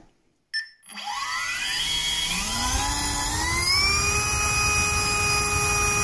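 Avenger V3 brushless outrunner motor spinning a six-blade lift-fan propeller on a thrust stand, starting after a short blip about half a second in. Its whine rises in pitch for about three seconds as the throttle comes up, then holds steady at high power over the rushing of the prop wash, drawing about 1400 watts for about 2.2 kg of static thrust.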